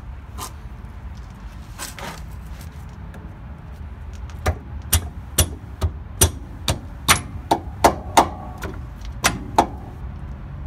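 A series of sharp metal-on-metal strikes, about two a second after a couple of softer knocks, as the old shock absorber's lower eye on a 2001 Ford E450 is knocked outward off its mounting stud.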